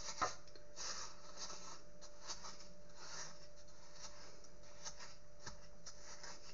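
Stiff, crumbly dough of butter, sugar and crushed biscuits being stirred round a mixing bowl with a utensil: repeated scraping strokes, about two a second, with a light knock on the bowl just after the start.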